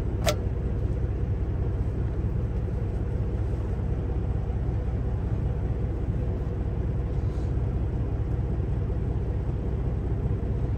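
Steady low drone of an idling semi truck engine, heard from inside the cab. Just after the start there is one sharp click as a tortilla is flipped onto an electric skillet.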